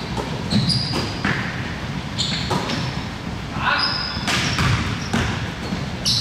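A basketball game on an indoor court: the ball bouncing several times and sneakers squeaking in short high chirps as players move, over a low hum of gym noise.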